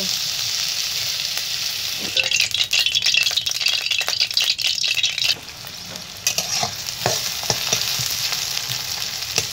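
Food frying in oil in a steel kadai: a steady sizzle with a spatula scraping and tapping against the pan. About two seconds in the sizzle turns louder and crackling for around three seconds, drops briefly, then resumes as sliced onions fry and are stirred.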